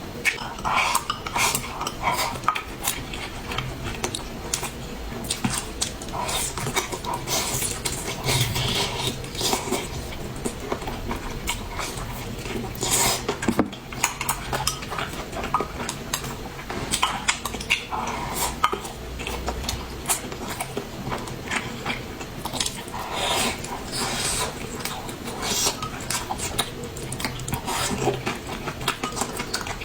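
Tableware clinking and knocking: utensils tapping against bowls and plates many times at irregular intervals.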